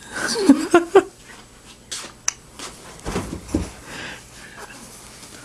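Baby making short squeaky vocal sounds and breaths, most of them in the first second, with a couple of small sharp clicks about two seconds in.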